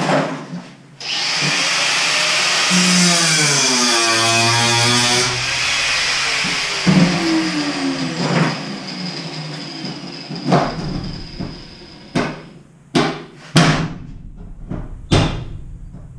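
Angle grinder cutting the steel wall panels under the bus's window sills: a harsh hiss with a steady high whine that runs for about ten seconds, then stops. Several sharp metal knocks follow near the end.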